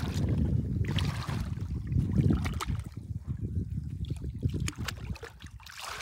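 Shallow lake water sloshing and splashing around a person wading and feeling along a fishing net with his hands under the water, over a low rumble; the splashing eases off about halfway through.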